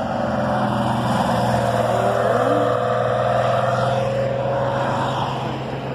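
Classic Porsche 911's air-cooled flat-six engine driving past, a steady engine note that fades as the car moves away near the end.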